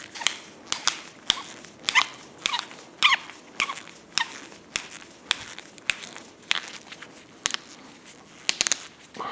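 Repeated sharp strokes of a hand tool working wood or metal, about two a second, some with a brief falling ring.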